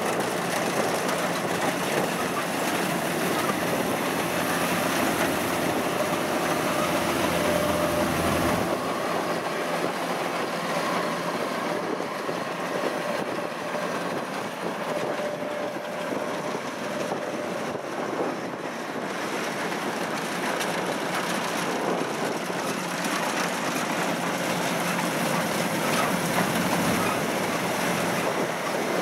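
Kubota DC-93 combine harvester running steadily while cutting rice: its engine and harvesting machinery make a continuous mechanical noise. The deeper rumble drops away about nine seconds in.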